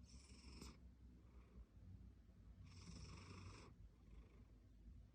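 Faint snoring of a domestic cat breathing through a congested nose, a sign of its rhinitis. Two wheezy, rasping snores come about two and a half seconds apart, with softer breaths between them.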